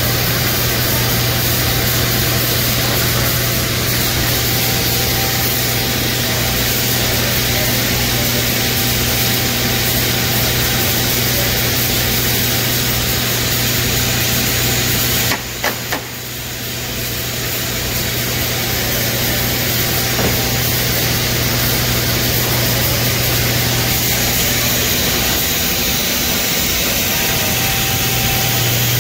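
Blueberry sorting and packing line running: a loud, steady machine noise with a constant low motor hum under a hiss, dipping briefly about halfway through.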